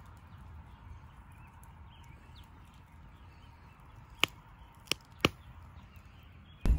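Wood campfire burning quietly, with three sharp pops from the burning wood in quick succession a little past halfway.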